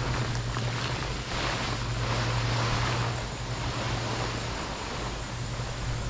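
A large plastic tarp being dragged off bare soil and across grass, with a rustling, scraping noise that swells between about one and three seconds in. A steady low rumble runs underneath.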